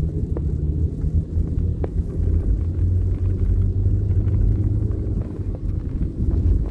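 Steady low rumble of a moving road vehicle, heard from on board, with wind buffeting the microphone.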